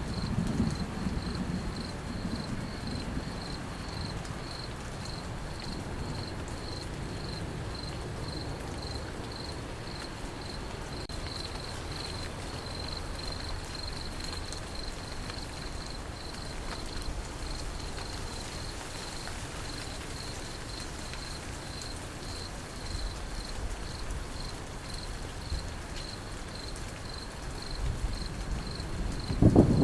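Crickets chirping in a steady, evenly pulsing high trill over the steady hiss of rain. A low thunder rumble dies away over the first few seconds, and a new loud rumble of thunder breaks in right at the end.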